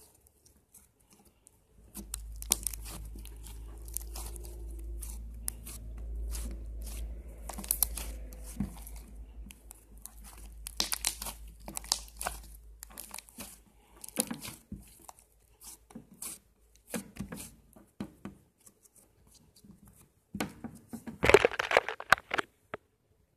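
Handmade slime being squeezed and stretched by hand, giving many short wet clicks and pops, with one louder, longer squelch near the end. A low rumble runs underneath through the first half.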